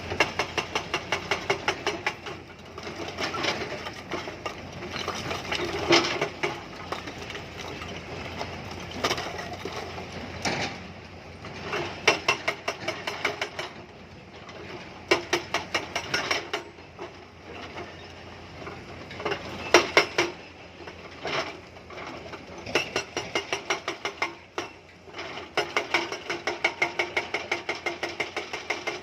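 Hydraulic rock breaker on a Tata Hitachi excavator hammering stone: runs of rapid, evenly spaced blows lasting one to three seconds, broken by short pauses, over the machine's running engine.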